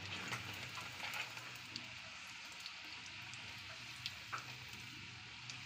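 Gujiyas deep-frying in hot ghee: a faint, steady sizzle with scattered small crackles.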